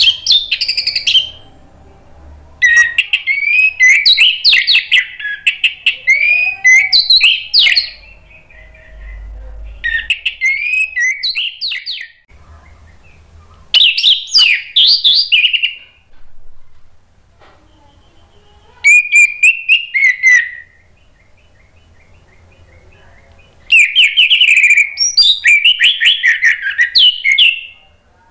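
Orange-headed thrush singing loud, rapid, varied song phrases. The song comes in six bursts of a few seconds each, separated by short pauses.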